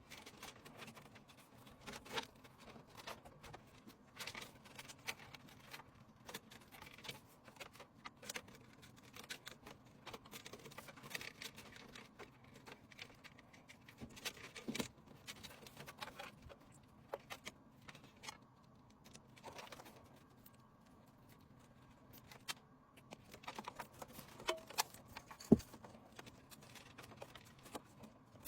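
Irregular light clicks, taps and rustles of small hard parts being handled, with a sharper knock near the end.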